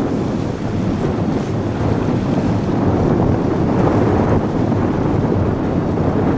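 Strong wind blowing over the microphone: a loud, steady rumbling noise.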